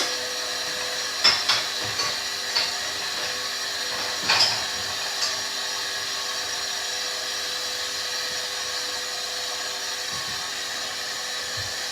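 Hoover washing machine's motor running with a steady high-pitched whine as it turns a drum loaded with bedding, with a few short knocks in the first half.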